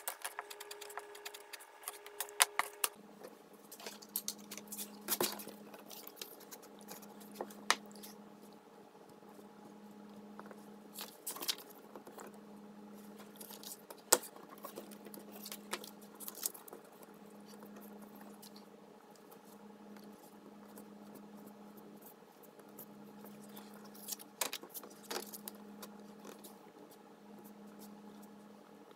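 Light handling of leather pieces, a paper pattern and tools on a cutting mat: scattered taps, clicks and rustles, a few sharper, over a steady low hum that swells and dips about every two seconds.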